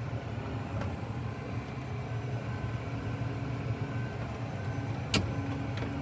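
A vehicle engine running steadily as a low hum, with a single sharp click about five seconds in.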